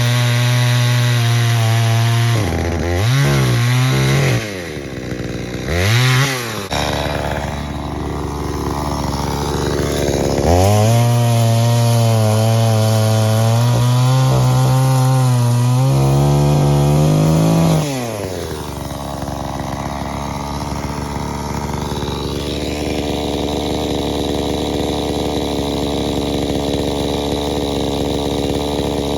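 ProRun 45 cc two-stroke chainsaw engine running on its warm-up after starting. Its pitch dips and rises a couple of times in the first several seconds, holds high and steady for a while, then drops to a lower idle about two-thirds of the way through.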